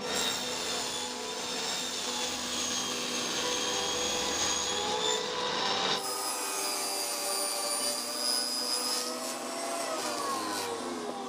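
An electric power tool running and working wood, a steady motor whine over a rasping noise. The sound changes abruptly about halfway through, and near the end the whine falls in pitch as the tool winds down.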